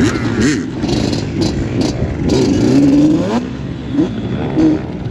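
Several off-road engines on dirt bikes and quad ATVs revving, pitches rising and falling against one another, with one longer rev about two and a half seconds in.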